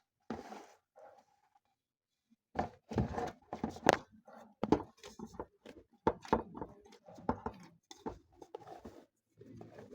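Irregular knocks and clatter of kitchen things being handled: bowls, containers and utensils set down and moved while ingredients are measured out. The knocks start about two and a half seconds in.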